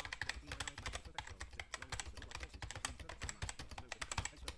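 Fast typing on a computer keyboard: a quick, steady run of key clicks.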